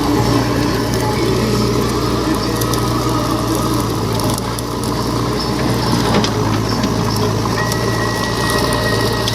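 Backhoe loader's diesel engine running steadily with a constant low drone.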